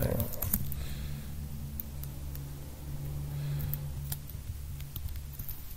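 Computer keyboard keystrokes, a few scattered clicks as a short search phrase is typed, over a steady low hum.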